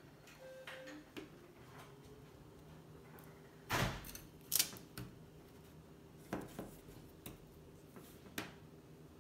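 Light knocks and taps of hands handling paper straws and Rice Krispie treats on a parchment-covered table, a few scattered handling sounds with the two loudest about four seconds in, half a second apart.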